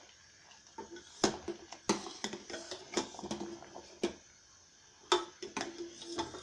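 A metal spoon clinking and scraping against a metal pan while stirring thick, reducing milk, with sharp irregular clinks roughly once a second.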